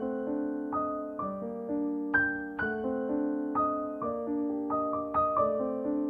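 Slow background piano music: single notes and chords struck one after another and left to ring.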